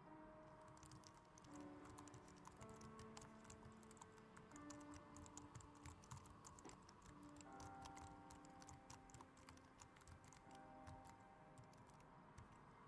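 Fast, irregular keystrokes on a laptop keyboard, faint, over soft background music with held notes.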